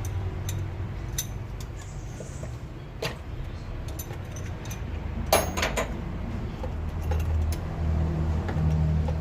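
Metal tools clinking and clicking as a spark plug is worked out of the misfiring cylinder, with a loud cluster of clinks about five seconds in. A low hum runs underneath.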